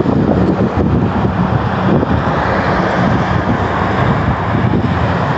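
Wind buffeting a phone's microphone: a loud, steady rush of noise.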